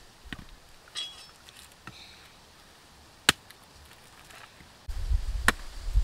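Two sharp chopping strikes a couple of seconds apart, the first the louder, with a few fainter clicks before them and a low rumble near the end.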